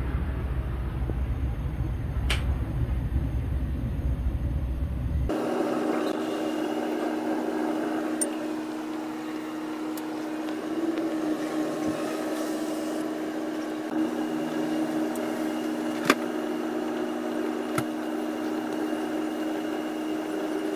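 A big aluminium pan of octopus boiling hard on a gas stove: steady bubbling and burner noise with a low hum, and a few light clinks of a metal spatula against the pan. The first few seconds are covered by a heavy low rumble on the microphone.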